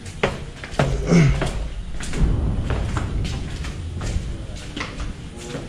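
Irregular knocks and thuds over a low rumble: handling noise and footsteps from a handheld camera carried while walking. A brief falling tone sounds about a second in.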